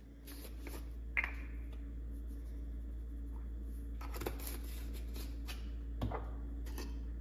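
Spice containers being handled on a kitchen counter: a few sharp plastic clicks and knocks as caps are opened and jars picked up and set down, with brief rattles of seasoning, over a steady low hum.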